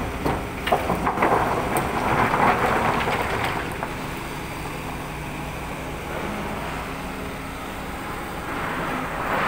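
Rocks clattering and rumbling into a steel bin as a Komatsu excavator loads it, with sharp knocks for the first four seconds or so. Diesel engines run steadily underneath, and the hum carries on alone once the clatter dies away.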